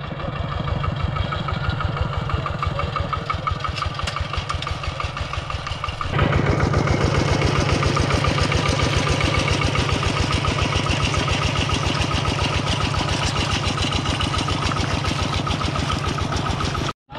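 A tractor's engine running steadily with a rapid, even beat. About six seconds in it turns louder and fuller, as if opened up or taking load.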